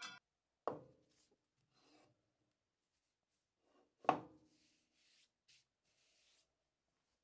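Two light knocks of a sawn carob-wood block handled on the metal saw table, about a second in and about four seconds in, followed by faint brushing as a hand rubs across the block's sawn face.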